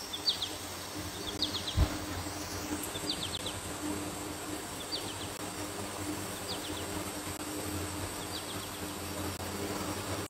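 Outdoor ambience: a high chirp of three or four quick notes repeats about every second and a half over a steady hiss, with one low thump about two seconds in.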